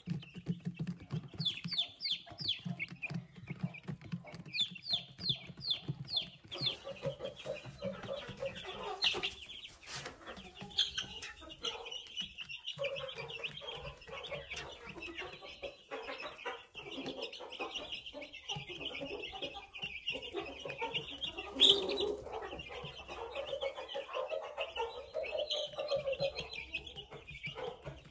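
Young chickens peeping and clucking: two runs of quick, falling high peeps in the first six seconds, then steady overlapping cheeping and clucking, with one sharp knock about three-quarters of the way through.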